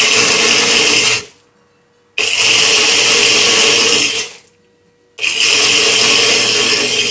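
Personal push-down bullet-style blender blending a smoothie of milk, coffee, fruit and chocolate pieces. The motor runs in pulses, started and stopped by pressing the cup down: it runs until about a second in, again from about two to four seconds, and starts once more about five seconds in.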